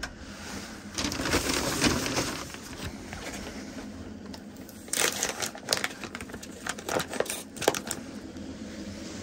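Plastic food packaging of sliced prosciutto crinkling as it is handled and peeled open: a dense rustle about a second in, then a run of sharp crinkles and snaps in the second half as the film and slices are pulled off the tray.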